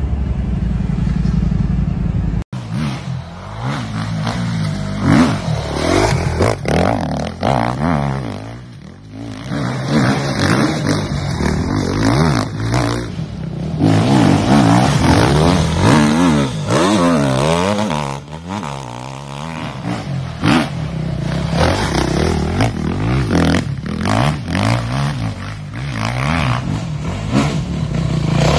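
Steady road noise for the first two seconds or so. Then a dirt bike engine revs up and down over and over, its pitch rising and falling as it is ridden hard off-road.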